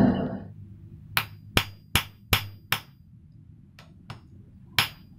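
Hand hammer striking a small lump of freshly cast copper on a steel block: five quick blows about two and a half a second starting about a second in, then two lighter taps and one more firm blow near the end.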